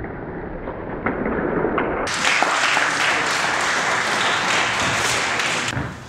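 Audience applauding. It gets louder and brighter about two seconds in, then cuts off abruptly shortly before the end.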